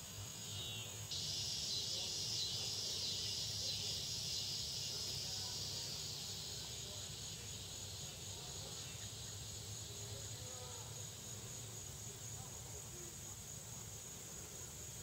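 Steady chorus of insects, a continuous high buzz, with a second, lower-pitched insect band joining about a second in and slowly fading, over a faint low rumble.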